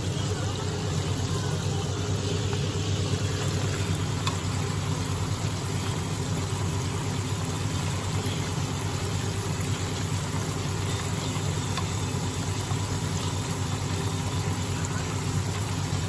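Chicken karaage pieces deep-frying in hot oil, with a steady sizzle and fine crackle over a steady low hum.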